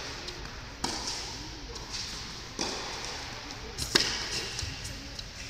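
Tennis ball being struck and bouncing on an indoor hard court: three sharp pops, about a second, two and a half and four seconds in, the last a quick double, each echoing briefly in the hall. Quiet spectator murmur underneath.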